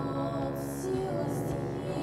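Background music with sustained, held tones.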